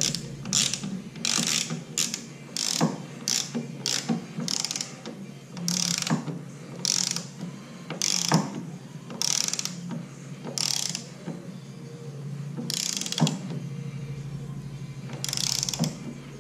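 Socket ratchet clicking in short back-and-forth strokes while snugging bolts that are already tight, checking them for tightness. The strokes come about every half second at first, then thin out to a few with pauses after about ten seconds.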